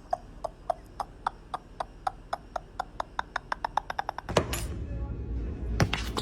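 A steady run of light, sharp clicks, about four a second, coming a little faster near the end. About four seconds in they stop and a low rumbling noise takes over, with one more sharp click near the end.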